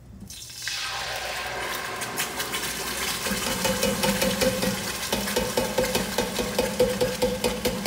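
Tomato puree pouring from a can into hot olive oil in an enamelled Dutch oven, sizzling and spattering. The sizzle builds into a dense crackle of quick pops about halfway through.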